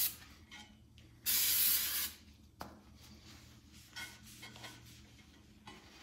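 Aerosol can of wax and grease remover spraying onto a steel strut brace: a very short squirt at the start, then a longer hiss of about a second. After that come soft, intermittent rubbing sounds as a cloth wipes the metal down.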